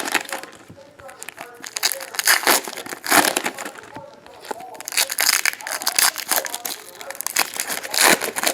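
Foil trading-card pack wrappers crinkling and tearing as packs are opened and the cards handled, in several irregular rustling bursts.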